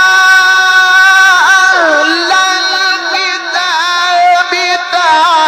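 A male Quran reciter's voice in the melodic, maqam-based style. He holds a long steady vowel for about a second and a half, then ornaments it with runs that slide up and down in pitch.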